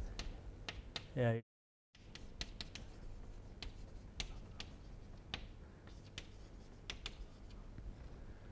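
Chalk writing on a blackboard: a run of sharp, irregular taps and short scrapes as letters are formed. About a second in there is a brief bit of a man's voice, cut off by half a second of dead silence where the audio drops out.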